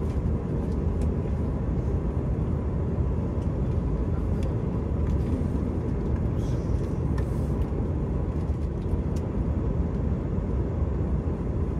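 Cabin noise inside an Airbus A319-100 airliner: a steady low rumble of engines and air, with a faint steady high tone and a few light ticks.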